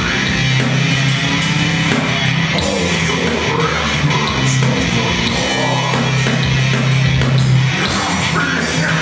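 Live heavy metal band playing loud: distorted electric guitars and bass holding low sustained notes over drums and cymbals.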